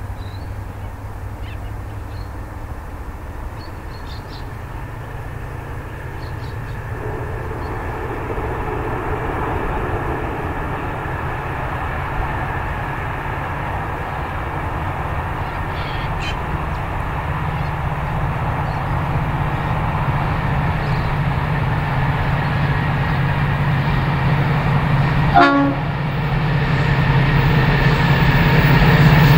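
Diesel-electric freight locomotives (a G, an XR and a BL class in multiple) approaching, their engine drone growing steadily louder, with a brief knock near the end.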